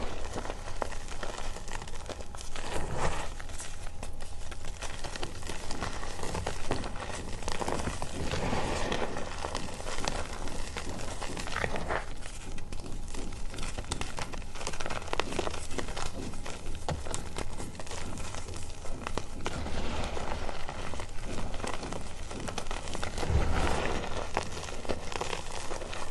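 Hands crushing and crumbling pieces of reformed gym chalk into loose powder: a continuous crackly crunching with many small snaps and the soft rustle of powder.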